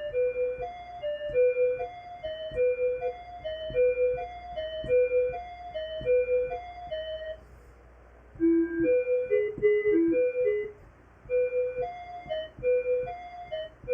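A looped electronic melody of short, piano-like keyboard notes played back in Ableton, repeating the same figure; about eight seconds in it drops out, plays a different short phrase, and pauses once more before the loop comes back.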